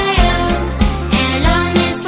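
Upbeat children's song with a steady bass beat and a sung melody.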